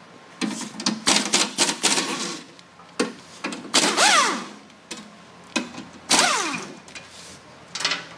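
Pneumatic air wrench on an air hose, run in several short bursts as it backs out the bolts of a trencher's belt housing. Several bursts end with the air motor's pitch falling as it spins down.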